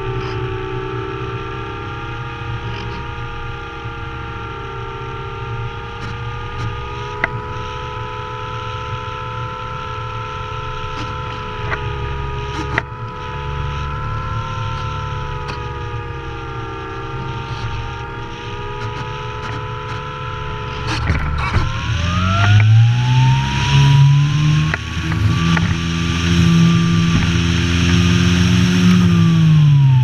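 Light aircraft's piston engine and propeller droning steadily, with wind rush on an outside-mounted camera. About two-thirds of the way through the pitch climbs sharply and the sound grows louder and windier as the aircraft banks and picks up speed, then the pitch drops back near the end.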